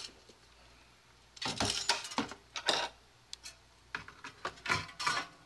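Copper-finned CPU heatsink being lifted out of a computer case: a series of short metallic clicks and clatters as it knocks against the case and parts, in bursts about a second and a half in and again from about four seconds in.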